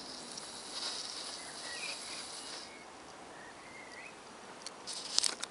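Quiet outdoor background with a high, steady trill that stops about halfway, a couple of faint short chirps, then a few sharp clicks and taps near the end.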